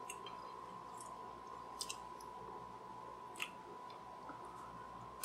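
Faint, scattered clicks of chopsticks picking through a plate of saucy teriyaki mushrooms, over a faint steady high tone.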